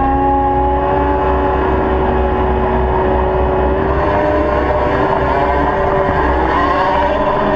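Caterpillar 299D XHP compact track loader running and travelling: a steady engine drone with several held, whining pitches over a deep rumble, the pitches wavering slightly midway.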